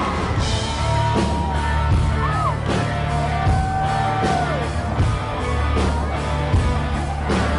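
Country-rock band playing live: a lead guitar holds long notes that bend and fall away, over steady bass and drums.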